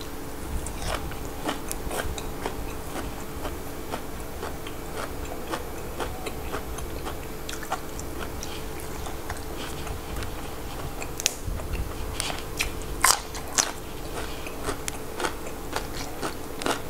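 Close-miked chewing and crunching of crisp raw vegetables and pon kob frog dip: irregular crisp crunches, a few louder ones in the second half.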